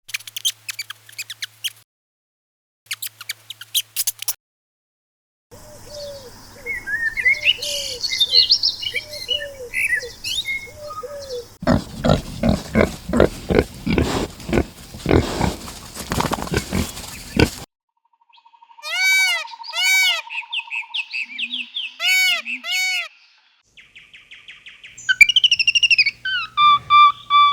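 A string of short animal-call clips, cut one after another with brief silences between them: mostly birds chirping and calling, with a stretch of evenly repeated pulsing calls in the middle.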